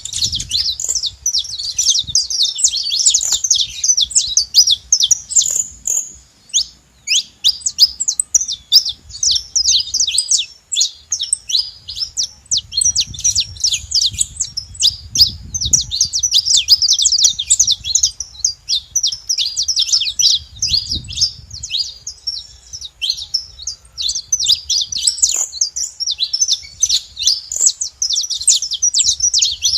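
Several saffron finches chirping together in a dense, continuous stream of quick, overlapping high notes.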